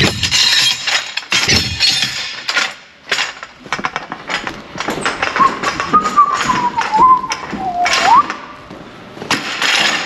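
Footsteps and knocks on a truck trailer's floor and the metal dock leveler plate, about two hard thumps a second. About halfway through a thin wavering tone is held for nearly three seconds and ends in a quick upward slide.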